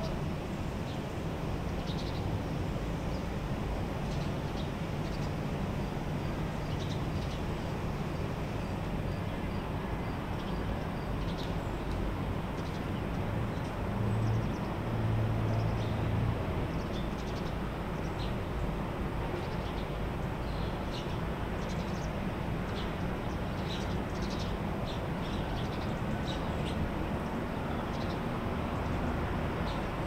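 Steady hum and rush of a hotel ventilation system, with birds giving short chirps now and then and a louder low hum for a couple of seconds about halfway through.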